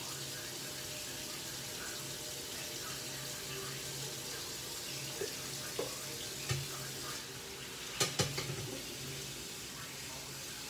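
A steady hiss with a low hum underneath, broken by a few light knocks and clatters between about five and eight seconds in, the two loudest close together near the end.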